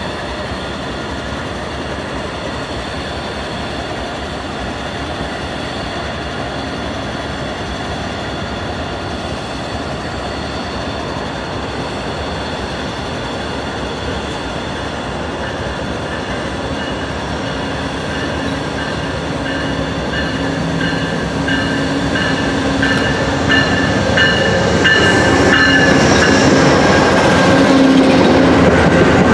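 Amtrak Lake Shore Limited passenger train pulling into the station: a steady rail rumble that grows louder as it nears and passes. In the second half, high squealing tones from the wheels come in as the train slows.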